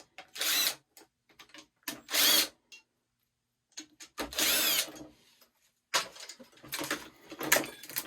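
Power drill/driver running in three short bursts, its pitch rising and falling, as it backs screws out of a typewriter's casing. Irregular clicks and rattles of parts being handled follow near the end.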